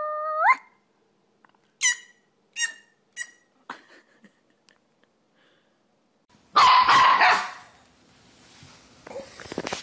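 Small black fluffy puppy yipping: first a drawn-out cry that rises in pitch at its end, then four short, high yips in quick succession. About two-thirds of the way in, a louder, rougher burst of sound lasting about a second, followed by softer scuffling noise.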